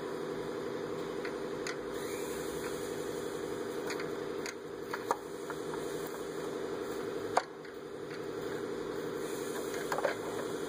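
A small motor's steady hum, with a few sharp clicks of metal parts being handled; the loudest click comes about two-thirds of the way in.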